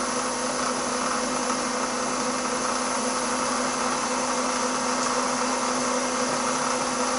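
Bridgeport vertical milling machine running with its spindle turning slowly: a steady motor hum with a constant low tone.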